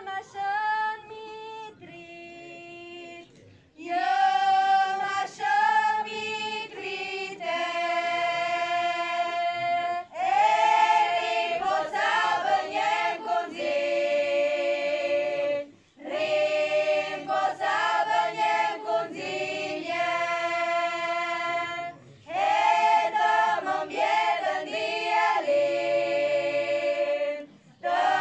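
Small choir of women singing an Arbëreshë folk song, in long held phrases of about six seconds with a short breath between each.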